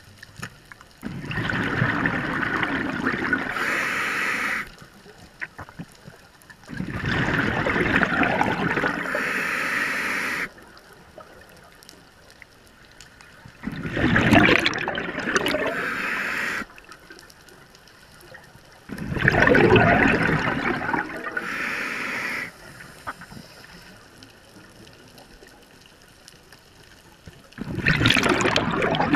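Scuba regulator exhaust: a diver breathing underwater, each exhale a loud bubbling rush lasting about three to four seconds, repeating about every six seconds, with quieter gaps for the inhale. Five exhales, the last starting near the end.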